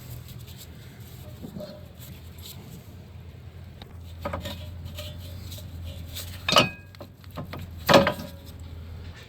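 Metal clinks and knocks as worn rear brake pads are wiggled out of the caliper bracket: a few light taps, then two sharper ringing clinks about six and a half and eight seconds in, over a steady low hum.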